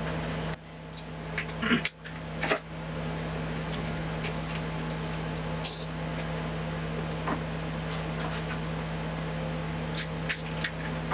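Corrugated plastic flexible conduit being handled and a plastic wire tie being fastened around it: a few short clicks and rustles, clustered about two seconds in and again near the end, over a steady low hum.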